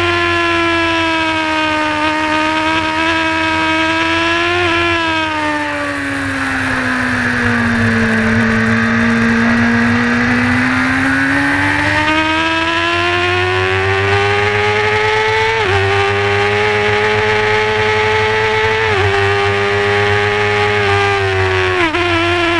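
Honda race motorcycle's engine heard from on board at racing speed: the revs hold high, fall away for several seconds as the bike slows into a corner, then climb again. In the second half three upshifts each drop the pitch suddenly before it rises again.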